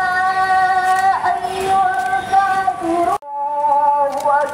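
A single voice chanting in long, steady held notes, typical of the imam's melodic Quran recitation while the congregation stands in prayer. It breaks off abruptly about three seconds in and resumes on a different note.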